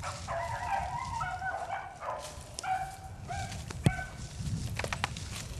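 Beagles baying: several overlapping high calls in short held notes through the first three and a half seconds. A single sharp snap comes about four seconds in.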